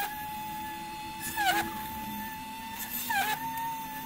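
Small 12-volt DC motor of a 3D-printed mini drill press running with a steady whine. Three times, about a second and a half apart, its pitch sags briefly and a short grinding hiss sounds as the bit is pushed through a copper PCB, the motor slowing under the load.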